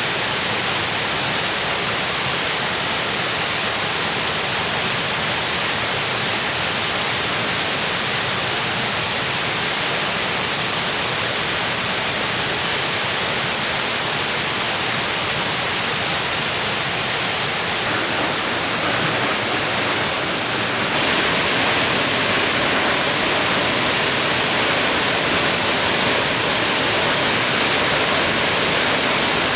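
Waterfall rushing in a steady roar of falling water, growing louder twice in the second half.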